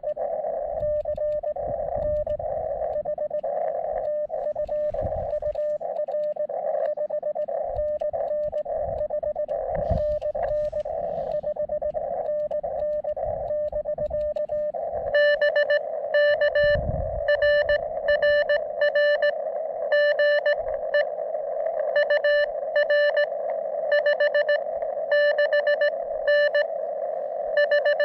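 Morse code (CW) tones from a portable ham radio receiver: a hissy band with weaker keyed signals, then about halfway a much stronger Morse signal keying on and off at a single pitch. Scattered low rumbles come and go underneath.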